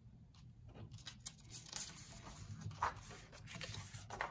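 A picture-book page being turned: faint paper rustling and a few soft taps as fingers lift the page over and smooth it flat.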